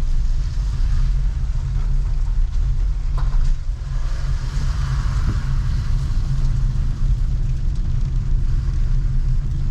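Heavy rain hissing steadily on a city street, over a continuous low rumble of the kind made by traffic or wind on the microphone.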